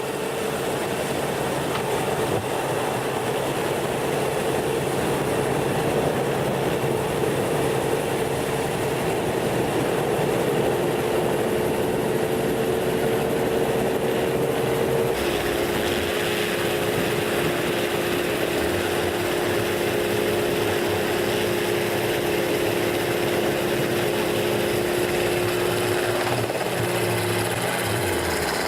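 A large fishing boat's engine and machinery running steadily, a constant drone with a humming tone that steps lower about halfway through.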